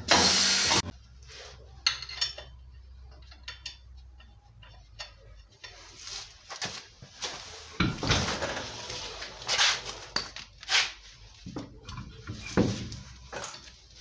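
A short blast of compressed air from the tyre changer, about a second long, cutting off sharply, as the bead lock is released and the tyre is filled. Then scattered metallic clanks, clicks and knocks of the wheel and tools being handled.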